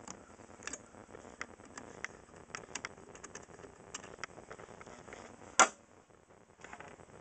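Small metallic clicks and ticks of steel pliers gripping and turning a thread-cutting tap in a hole in a die-cast metal cabinet, at uneven intervals. One sharper knock comes about five and a half seconds in.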